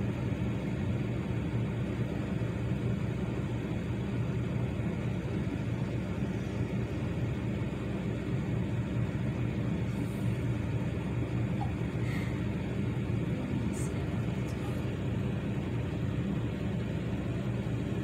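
Steady low rumble that holds at one level throughout, with a few faint, very brief high sounds a little past the middle.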